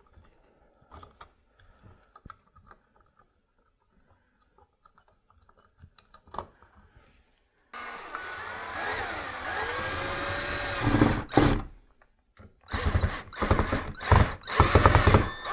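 A cordless drill driving screws to fasten a fan bracket to a ceiling electrical box. After a few faint handling clicks, the drill runs steadily from about halfway through, its motor whine bending up and down in pitch as the screw drives in. It then stops briefly and comes back as a series of short trigger bursts near the end.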